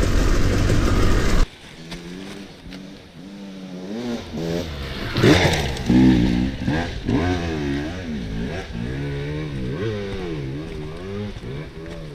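Dirt bike engine revving up and down over and over, the revs rising and falling every second or so, louder about five to six seconds in. Before it, the first second and a half is loud riding noise that cuts off suddenly.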